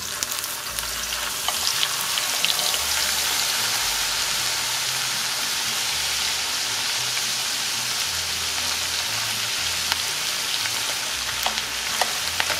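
Raw cut potatoes deep-frying in rice bran oil at about 360–370 °F in a cast-iron skillet: a steady, dense sizzle of bubbling oil with scattered sharp pops as water cooks out of the potatoes. This is the first fry of double-fried fries.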